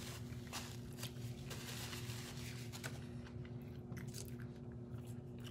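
A person chewing McDonald's food close to the microphone: small irregular crunching and smacking clicks over a steady low hum.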